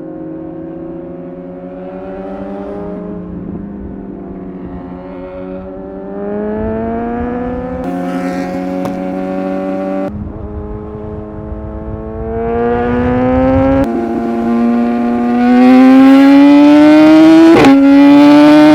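Superbike engine accelerating hard through the gears: the pitch climbs, drops at upshifts about ten and fourteen seconds in, then climbs again, much louder over the last few seconds. Wind rushes over the microphone underneath.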